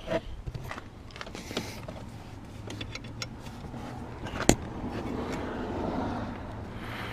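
Hands working the antenna cable and interior plastic trim: scattered clicks and rustling, with one sharp click about four and a half seconds in.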